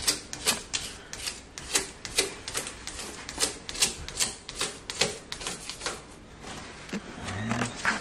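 A rapid, irregular series of sharp clicks and taps, about three or four a second.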